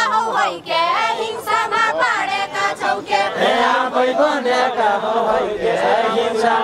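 A mixed group of men and women singing a far-western Nepali nyaulya folk song together in a chant-like melody, many voices at once.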